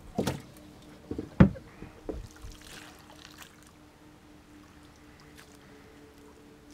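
Several knocks and thumps against a small boat's hull, the loudest about a second and a half in, as a person shifts about in it and handles a landing net, followed by a soft swish of water as the net goes in.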